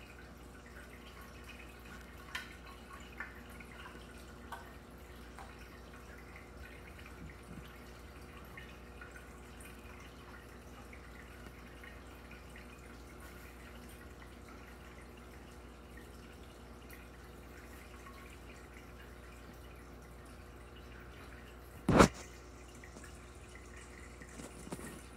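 Aquarium water trickling and dripping steadily over a low equipment hum, with a few faint ticks in the first few seconds. A little before the end comes a single loud, sharp pop.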